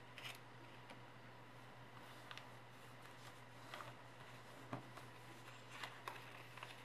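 Faint rustling and crinkling of origami paper as it is folded and creased by hand, in short scattered rustles with a sharper crackle a little under five seconds in. A steady low hum runs underneath.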